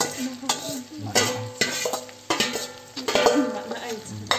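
Small fish frying in hot oil in a pan, sizzling, with a steel lid and utensil clinking against the pan several times; voices in the background.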